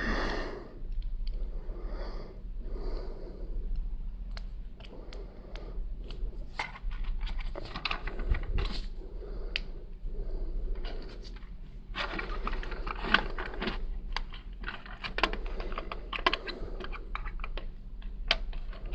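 Plastic Lego bricks being handled, clicking and clattering in many small sharp ticks, with stretches of rustling among the pieces.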